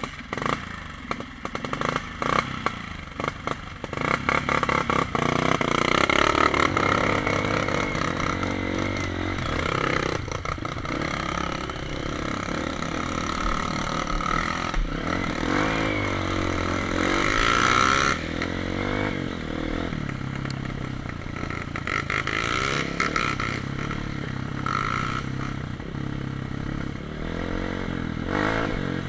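Honda CRF230 dirt bike's single-cylinder four-stroke engine starts up, then pulls away along a rough dirt trail, its revs rising and falling with throttle and gear changes. The bike rattles and clatters over the ground.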